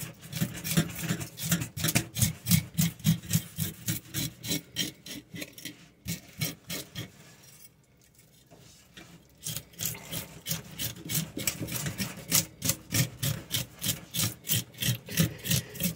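A blade scraping the large scales off a striped bass in quick, repeated strokes, several a second, with a pause of a few seconds around the middle.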